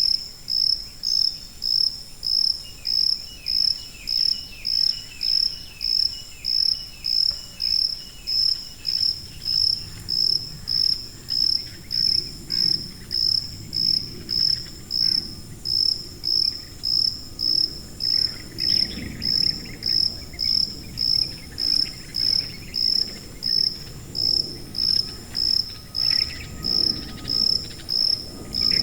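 Cricket chirping steadily: high-pitched chirps repeating evenly, about one and a half a second.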